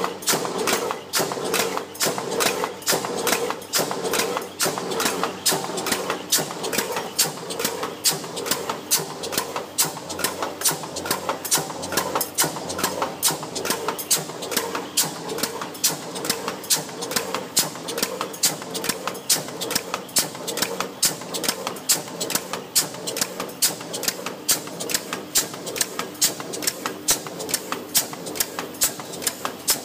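Press running a progressive stamping and cutting die, striking in an even rhythm of about two strokes a second over a steady machine hum, as thin 0.32 mm aluminium strip is fed through from a coil to punch out frame corners.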